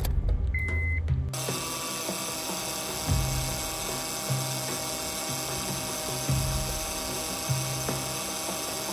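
A short high beep, then a Honda Accord engine running with its power steering pump making a steady whining, grinding noise. The on-screen caption puts this down to an old inlet O-ring that lets the pump suck air instead of fluid.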